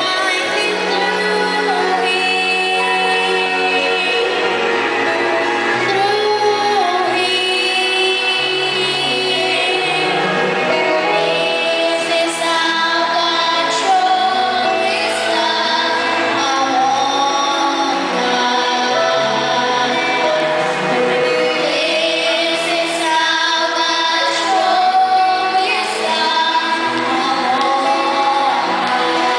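Children singing a Christian song into microphones over a musical accompaniment, amplified through loudspeakers, with solo voices taking turns. The singing and music are steady and unbroken, with long held notes.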